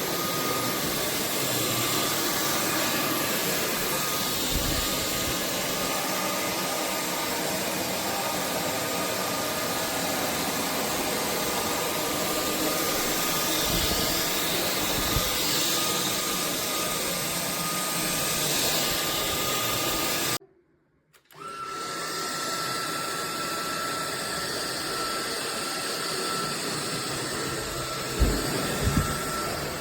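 AlloyMove cordless stick vacuum running steadily, a rushing of air over a thin high whine. About two-thirds of the way through it cuts out for about a second, then runs on with the whine a little higher. There are a few low bumps near the end.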